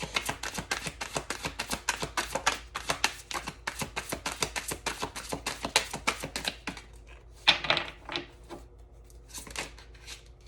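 Tarot deck being shuffled by hand, a quick run of card slaps for about six seconds, then a few single slaps near the end as the shuffling slows.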